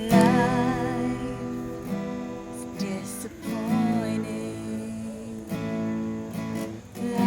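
A song accompanied on a strummed acoustic string instrument: chords struck a few times, each left to ring. A voice holds a wavering note over the first chord.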